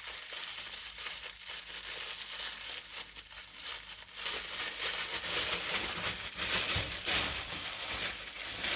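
Plastic packaging crinkling and rustling as a wrapped package is handled and opened, growing louder and busier about halfway through.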